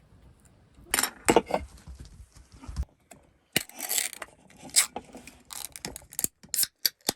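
Irregular clatter: a run of sharp knocks and clicks with short scraping noises in between, as of things being handled and set down.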